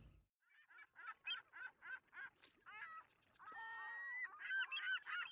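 A flock of geese honking. Separate short calls come about three a second at first, then a longer call follows, and from about four seconds in many calls overlap.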